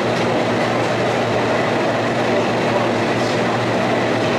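Model railway train running on a layout: a steady train running sound with a low hum underneath.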